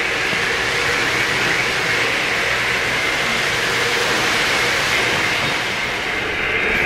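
Three-rail O-scale model trains running past on the layout track, a steady rolling rumble of wheels on metal rail.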